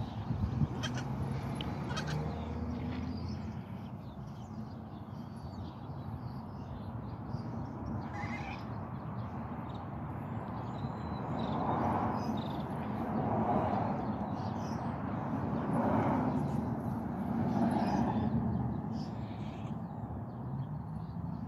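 Goat kids bleating, about four calls a couple of seconds apart in the second half.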